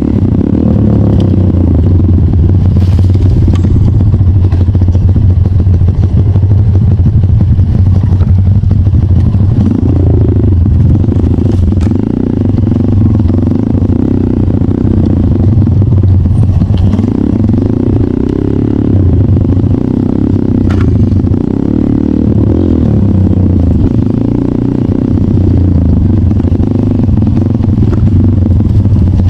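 Trail motorcycle engine running continuously while riding, its pitch rising and falling a few times as the throttle is opened and closed.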